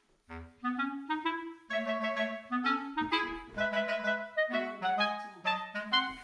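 Background music: a melody of short, quick notes with a light accompaniment, pausing briefly just after the start, with a bass line coming in about three seconds in.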